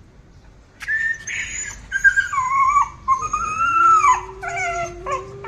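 Golden retriever whining: long, high-pitched whines that bend up and down in pitch, starting about a second in.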